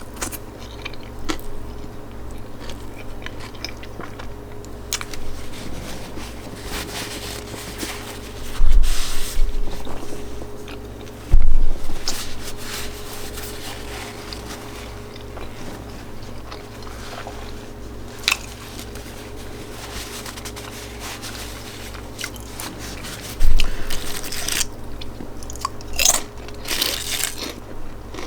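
A person biting and chewing an Italian sub sandwich close to the microphone. Three loud sharp knocks break in, two close together about a third of the way in and one near the end.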